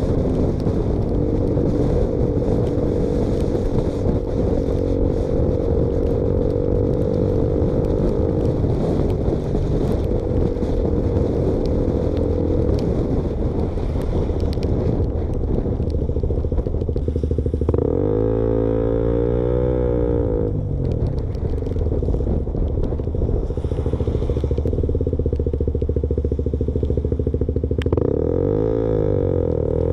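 KTM Duke motorcycle running with the baffle removed from its exhaust, giving an unbaffled, louder exhaust note. The engine note holds steady for most of the stretch, then its pitch swings up and down about two-thirds of the way through and again near the end.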